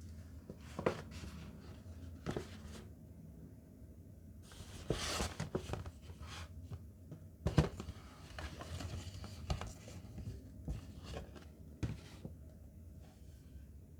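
Hands handling a watch box and its packaging: scattered taps and clicks, with a rustle of wrapping about five seconds in and a sharper click a couple of seconds later.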